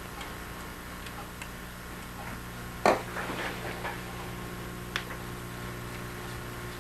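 Small sharp clicks of a Phillips screwdriver and small screws being handled on a fiber endoscope's control body: one loud click about three seconds in, followed by a second of light clicks, and another click near five seconds, over a steady low electrical hum.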